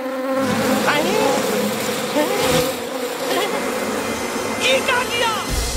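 A swarm of bees buzzing steadily, stirred up after being woken. A few short squeaky high glides cut across the buzz near the end.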